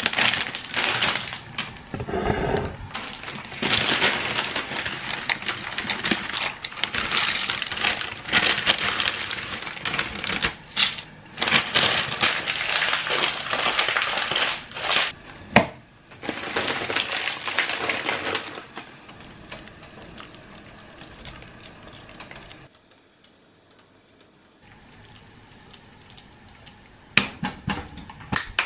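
Plastic bag of dry wide egg noodles crinkling as it is handled and shaken out, the noodles rattling into a pot of boiling water, for the first eighteen seconds or so. After that it goes much quieter, with a short near-silence and a few sharp clicks near the end.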